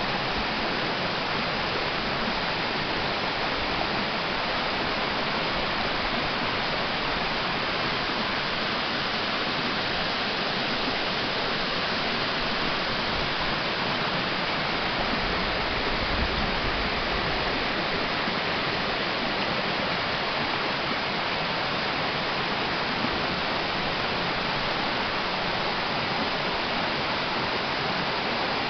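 Waterfall's water falling and splashing, a steady rush that does not change.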